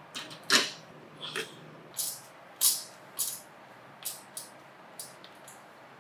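Small household objects being handled and set down: a dozen or so short, sharp clicks and knocks at irregular intervals, the loudest about half a second and two and a half seconds in.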